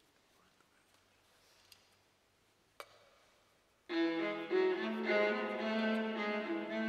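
A quiet room with a single click a little under three seconds in, then, about four seconds in, a solo violin starts playing a sustained melody.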